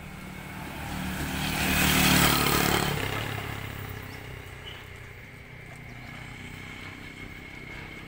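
A motorbike passes close by on the road, its engine sound swelling to a peak about two seconds in and fading away by about four seconds.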